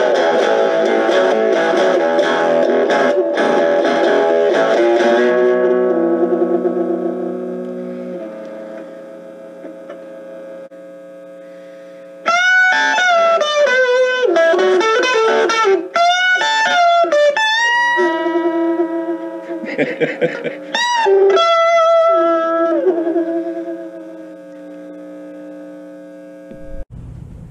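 Epiphone Les Paul SL electric guitar on the bridge pickup, played through a 3-watt mini practice amp with the gain up for a distorted tone. Chords are strummed for about five seconds and left to ring out. A single-note lead with string bends follows, and a held note fades near the end.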